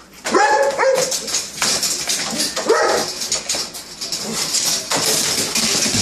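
Giant schnauzer giving two short excited whines, about a third of a second in and again near three seconds in, eager for her meal, over a steady clatter of clicks and scrabbling as she moves about at the crate.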